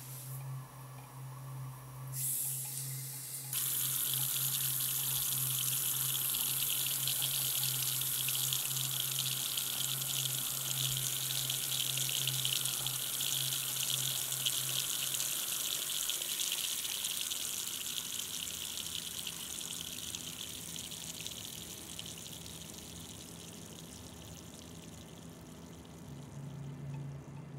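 Water from a tap running into a sink basin, coming on fully about three seconds in and then slowly fading away. A steady low hum lies under it, dropping out about two thirds of the way through and returning near the end.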